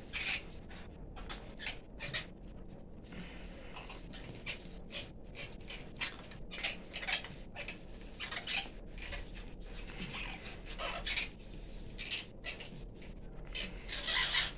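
Male painted bunting giving short, sharp chip calls at irregular intervals, with a louder cluster near the end.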